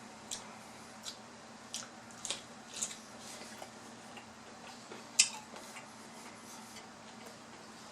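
Close-up eating sounds: irregular wet mouth clicks and crisp crunches of chewing chicken and cucumber, one sharper click about five seconds in. A fan hums low and steady underneath.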